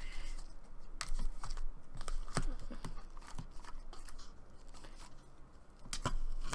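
Soft slime being scraped and pulled out of its container by hand, giving irregular sticky clicks and crackles.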